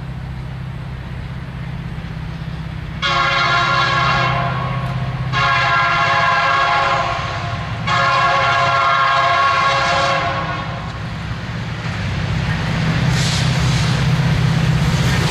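Diesel freight locomotive sounding its air horn in three long blasts, several notes at once, over a steady low engine rumble. After the third blast the engine rumble grows louder as the locomotive approaches.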